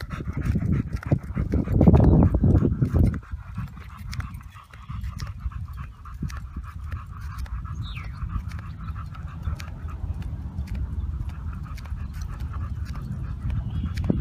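Dog panting while walking on a leash, over a low rumble that is loudest in the first three seconds.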